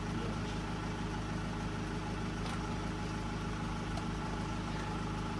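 A steady mechanical hum at a constant pitch, like a motor or engine running at idle, with a couple of faint ticks.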